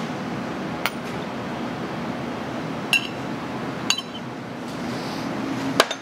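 A metal utensil clinking sharply against a small glass bowl four times as tuna is scraped out onto bread, over a steady low background hum.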